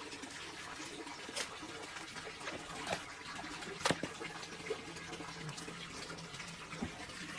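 Wet handling of a freshly gutted crocodile carcass: hands working through raw flesh and innards over a steady watery rushing noise, with a few sharp clicks, the loudest about four seconds in.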